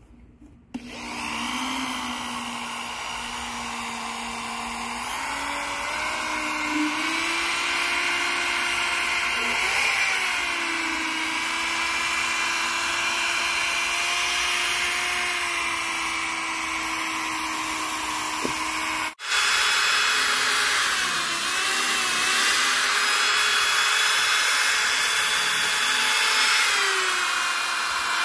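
Electric drill spinning a sanding and polishing pad against a plastic headlight lens, its motor whine rising and falling in pitch as the trigger and pressure change. It starts about a second in, cuts out abruptly about two-thirds of the way through and picks up again at once.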